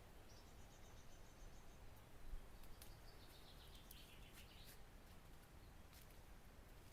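Faint birds calling over quiet outdoor background: a quick high trill lasting about a second and a half near the start, then a longer call falling in pitch in the middle.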